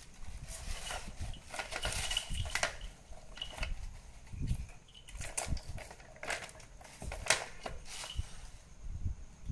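Plastic ball-track cat toy clattering and clicking as cats bat at it and knock the balls around the tracks, in irregular bursts.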